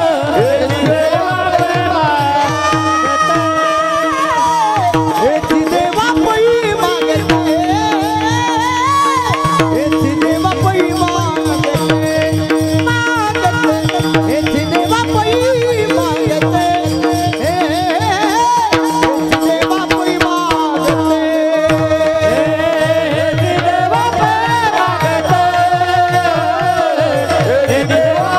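Men singing a Marathi devotional kirtan tune in chorus. They keep time with brass hand cymbals (taal) struck in a steady rhythm, over a drum beat and a steady held tone.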